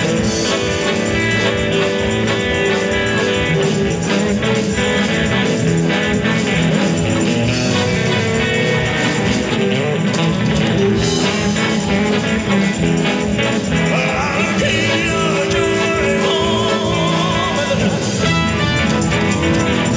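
A live rock-and-roll band playing: electric guitars, bass guitar, drums and keyboards.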